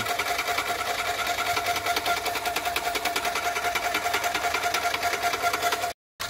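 Graco airless paint sprayer's piston pump running steadily with a rapid, even clatter, primed and pumping water through its hoses to flush them clean. It cuts out briefly near the end.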